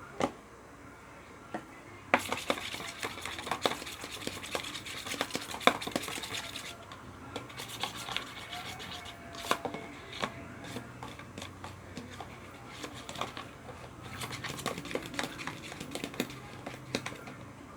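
A utensil stirring and scraping in a bowl of thick slime mixture, with many small clicks and knocks against the bowl. Busy bursts of stirring come near the start and again near the end.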